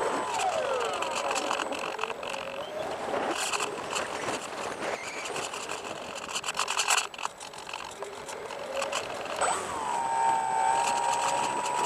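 Electric motor of a Bixler RC plane whining in flight. Its pitch drops within the first second as it is throttled back, holds lower, then rises again about ten seconds in as it is throttled up. Wind rush and crackling run throughout.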